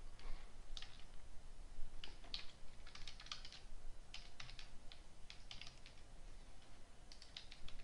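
Faint typing on a computer keyboard: scattered key clicks in short runs.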